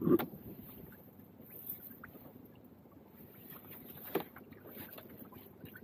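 Low background noise of a small open fishing boat on calm water, with a few light knocks, one right at the start and the sharpest about four seconds in.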